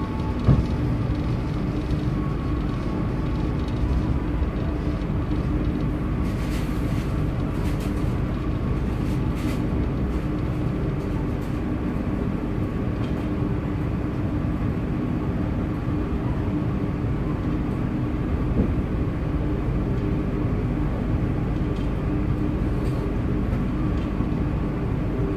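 Steady running noise of a passenger train heard from inside an Indonesian executive coach: a low rumble of wheels on the rails with a steady hum, a single knock about half a second in, and a few faint clicks a few seconds later.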